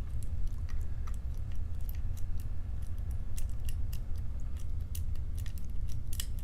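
Lock pick and tension wrench working the pins of a challenge padlock: faint, irregular metallic clicks and scrapes over a steady low hum.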